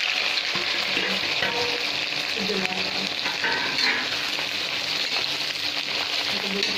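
Sliced onions sizzling in hot mustard oil in a kadhai, a steady frying hiss, while a spatula stirs them.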